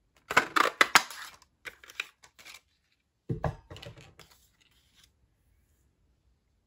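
Hand-held circle paper punch cutting through cardstock: a burst of sharp crunching clicks, then a few lighter clicks as the paper is worked free. A little over three seconds in comes a heavier knock on the table, followed by paper rustling.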